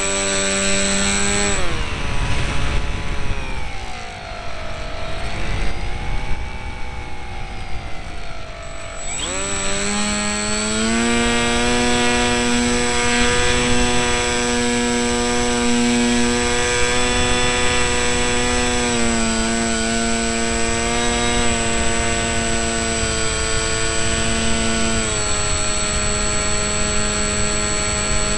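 Electric motor and propeller of an RC delta-wing model, heard through the camera it carries, whining steadily with a noisy rush of air beneath. About two seconds in the whine drops and wavers up and down in pitch. Near ten seconds in it climbs back to a steady pitch.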